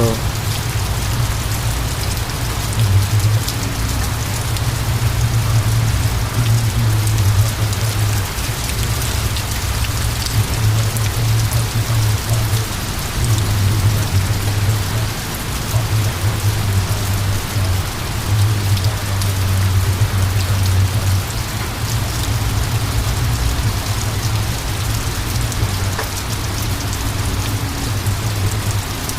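Rain falling steadily, an even hiss flecked with small drop ticks, over a loud low rumble that swells and eases throughout.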